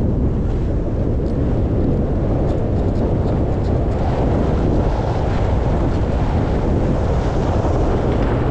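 Steady wind rumble buffeting the camera microphone as the skier moves downhill.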